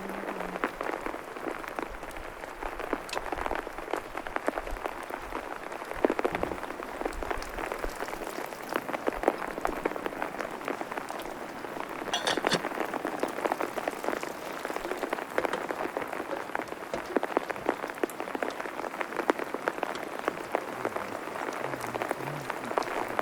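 Steady rain pattering on a surface, with many separate drop impacts and a few louder drips standing out, one about halfway through.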